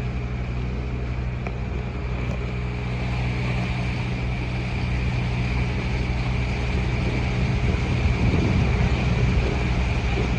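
A boat engine running steadily under way, a low even drone over a wash of water and wind noise, growing a little louder near the end.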